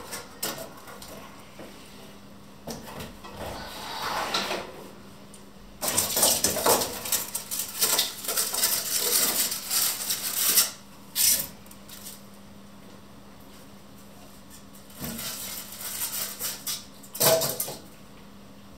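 A metal stovetop grill pan and grate being unpacked: metal clatter as they are lifted and set down, with rubbing and scraping of styrofoam packing pieces and cardboard in irregular bursts. The busiest stretch is in the middle, with a sharp knock near the end.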